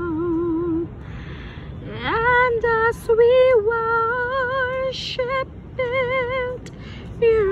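A woman singing a slow worship song in long held notes with a wide vibrato, taking audible breaths between the phrases.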